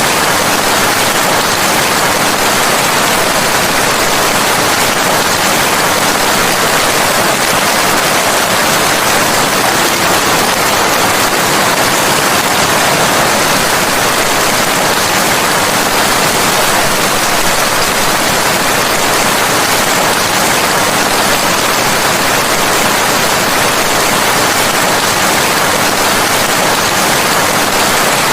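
Steady, even rainfall: a constant hiss of rain with no separate drops, thunder or changes.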